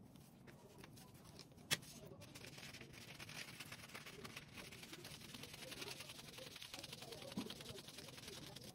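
Scissors cutting through large sheets of paper: a continuous run of quick snips with paper crackling, and one sharp click about two seconds in.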